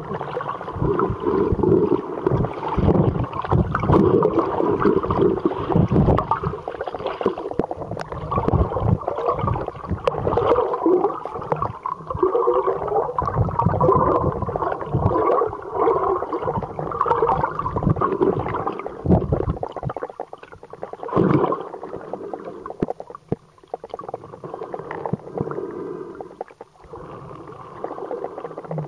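Underwater water noise around a swimming snorkeler: bubbling, gurgling water with irregular low thumps, growing quieter about two-thirds of the way through.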